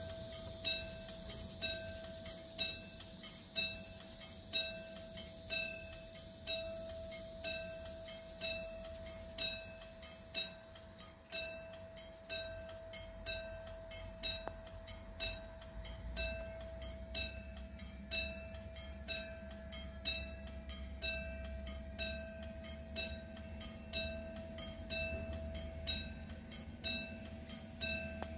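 Railway level-crossing warning bell ringing in evenly repeated strikes while the crossing lights flash and the barrier is down. A low rumble comes in about halfway through.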